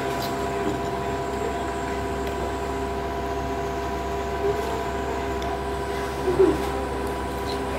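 Steady household appliance hum with several fixed tones, with a few faint clicks and two short faint sounds in the second half.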